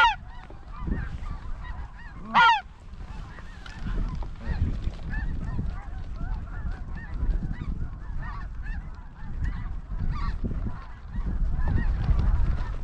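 A flock of geese calling, a steady chatter of many birds, with two loud honks at the start and about two and a half seconds in. Wind rumbles on the microphone underneath.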